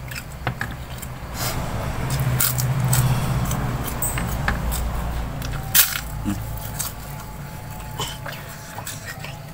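A man eating rice and sambal with his hand: chewing and mouth noises with scattered small clicks, over a low hum that swells for a couple of seconds.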